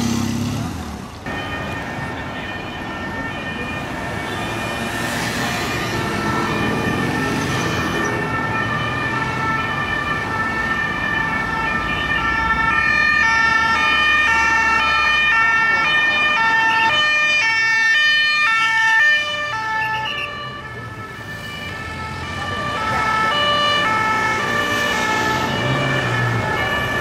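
Several French two-tone police sirens sounding at once, each alternating between a high and a low note, out of step with one another, over street traffic. A steady high tone runs under them. They fade about two-thirds of the way through and then come in again.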